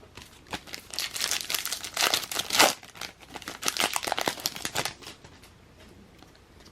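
Plastic wrapper of a Topps baseball card pack crinkling and tearing as it is opened, a dense crackle lasting about four seconds before it quiets.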